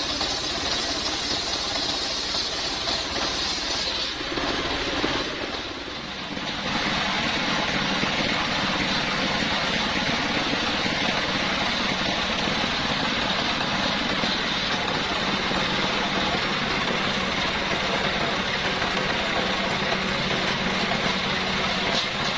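Stationary single-cylinder engine running steadily, driving a homemade circular saw bench with its blade spinning. The sound changes and briefly dips about five seconds in, then holds steady.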